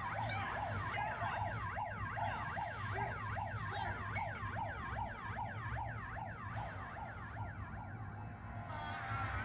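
A siren wailing in a fast yelp pattern, its pitch sweeping quickly up and down two or three times a second, fading out near the end. A steady low hum runs underneath.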